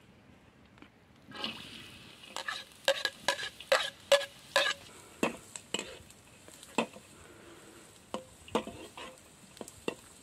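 Chopped onion hitting hot oil in a steel wok and starting to sizzle about a second in, then a metal spoon clinking and scraping against the wok and plate as the onion is stirred, over steady frying sizzle.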